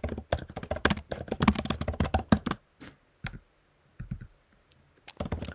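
Typing on a computer keyboard. A quick run of key clicks lasts about two and a half seconds, then comes a handful of scattered keystrokes, and the typing picks up again near the end.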